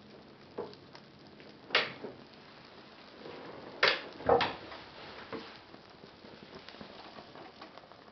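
Paper burning while held in the hand: a faint crackle and hiss with a few sharp crackling snaps, the loudest pair about four seconds in.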